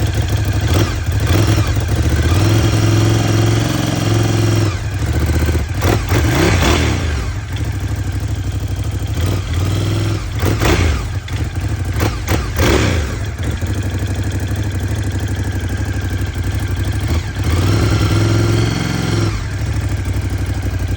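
Ducati Scrambler 1100's air-cooled L-twin engine idling and revved several times with brief throttle blips. It runs with a slapping noise that the owner takes for piston slap, though Ducati calls it normal.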